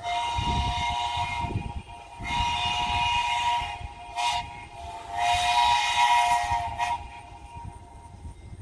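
Steam locomotive's whistle sounding a chord of several tones in four blasts, long, long, short, long: the grade-crossing signal. Beneath it the engine's low rumble and exhaust chuffs as it approaches.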